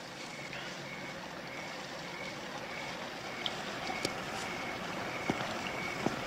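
Night-time street ambience: a steady background hiss, with a faint short high chirp repeating about twice a second and a few soft clicks.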